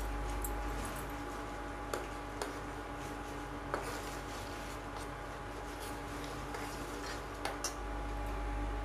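Steel ladle stirring a thick curry in a metal pan, with a few light clicks of the ladle against the pan, about five in all, over a steady hum.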